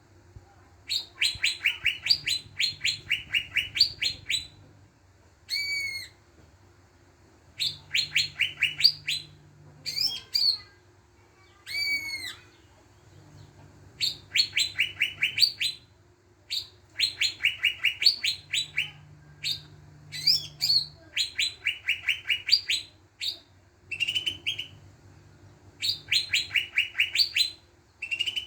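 Cucak ijo (green leafbird) singing in repeated phrases. Each phrase is a slurred whistle followed by a fast run of about ten sharp notes a second lasting two to three seconds, and the phrases come back about every four seconds. A faint low hum runs underneath.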